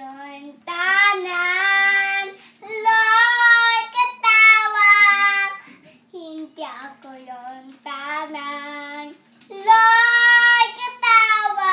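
A toddler singing in long drawn-out notes that slide in pitch, in about four phrases with short breaths between them.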